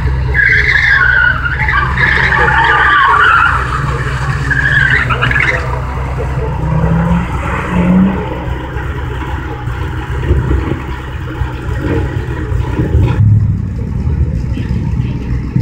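Car tyres squealing as a car slides through slalom turns on concrete, a wavering screech lasting about five seconds. Underneath, a car engine idles close by, with a couple of short revs about seven and eight seconds in.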